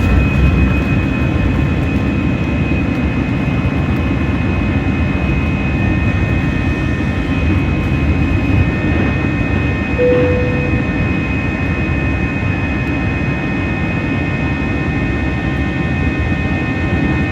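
Airbus A320 jet engines running at steady high power during departure: a continuous low rumble with a constant high-pitched whine over it.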